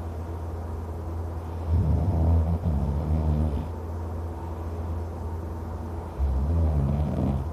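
A man snoring loudly and deeply: two long, low snores, one about two seconds in and one near the end, with a steady low hum between them.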